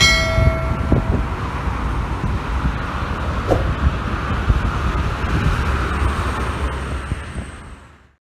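Steady traffic on a multi-lane highway: trucks and cars passing with engine rumble and tyre noise, fading out near the end.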